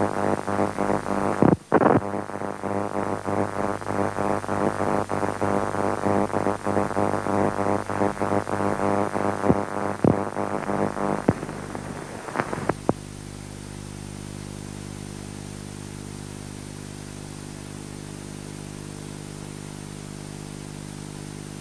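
Soundtrack noise of an old television recording: a loud, rapid, irregular crackle over a constant hum, which stops about thirteen seconds in and leaves a steady electrical buzz.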